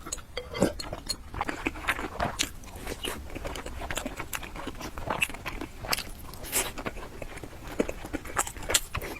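Close-miked mouth sounds of a person eating: wet chewing and biting with many irregular, crunchy little clicks.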